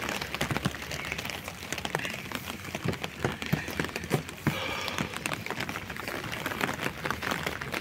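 Heavy rain falling and hitting surfaces, a dense, steady stream of small drop ticks.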